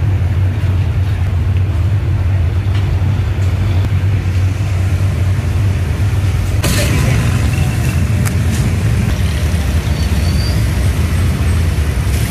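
Steady low mechanical hum. About seven seconds in, the hiss and crackle of batter frying in hot oil joins it.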